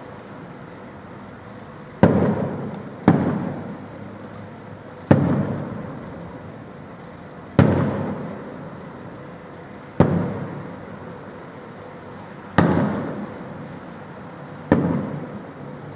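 Aerial firework shells bursting: seven sharp bangs at uneven intervals, the first about two seconds in, each trailing off in an echoing rumble.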